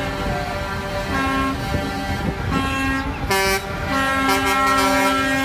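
Concrete mixer trucks' air horns sounding in several short blasts, then one held for about two seconds near the end, over the low rumble of the trucks' engines.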